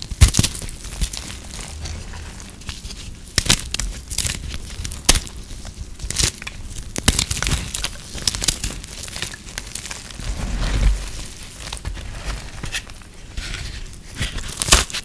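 Hands crushing and breaking brittle microwave-puffed soap: an irregular run of dry crunches and crackles, with a few sharper snaps.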